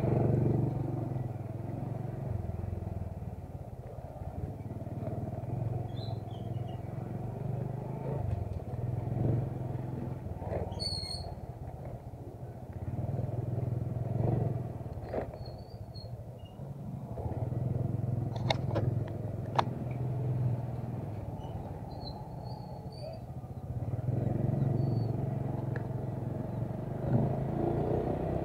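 A small motorcycle engine running at low speed, its note rising and falling in several swells with the throttle, with a few sharp clicks and rattles a little past halfway.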